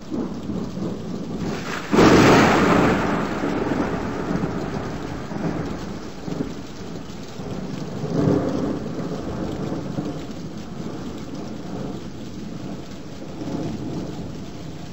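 Thunderstorm: steady heavy rain that starts abruptly, with a sharp thunderclap about two seconds in that rolls away slowly, and further rolls of thunder around the middle and near the end.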